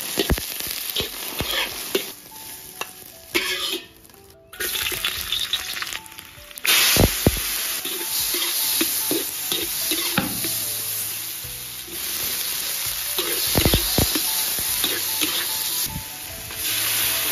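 Dense crackling sizzle that starts abruptly about seven seconds in and keeps going: green wheat ears being singed over a fire. Soft background music plays under it, with a few scattered clicks before the sizzle begins.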